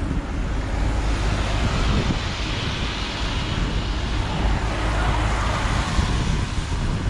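Steady road and engine noise of a car driving through town traffic. A louder rush of noise swells and fades through the middle.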